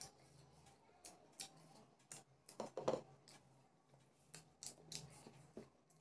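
Eating sounds: a scatter of short, sharp clicks and crunches as fish and rice are eaten by hand, loudest in a cluster about halfway through.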